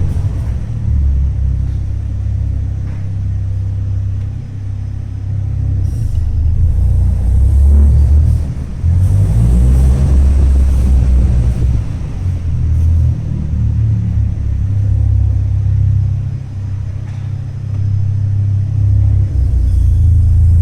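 Ford Focus ST making a loud, low, uneven rumble that swells and dips: a strange noise whose cause the owner does not know.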